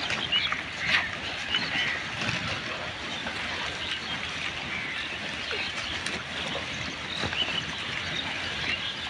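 Pigs rooting and feeding through a garbage heap: a steady rustle and crackle of plastic and debris, with scattered short high chirps.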